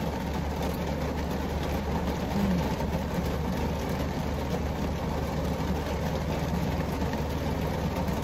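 Heavy rain beating steadily on a car's roof and windows, heard from inside the cabin, over a constant low hum.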